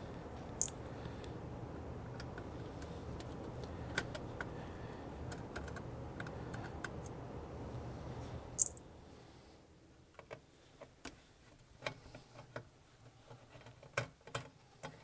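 Light clicks and taps of small screws being worked out of a circuit board with a small Phillips screwdriver. A steady low hum runs under the first half and stops with a single loud sharp click about two-thirds of the way through, after which only scattered clicks remain.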